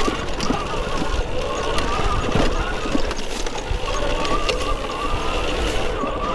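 Arctic Leopard electric trials motorcycle climbing a rocky trail: the electric motor whines, its pitch rising and falling with the throttle, over frequent knocks and rattles from the bike working over rough ground.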